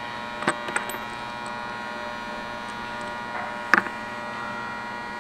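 Steady electrical hum with several fixed tones, broken by a few small clicks of plastic as the fuel line's quick-connect fitting and green retainer tab are handled; the sharpest click comes a little before four seconds in.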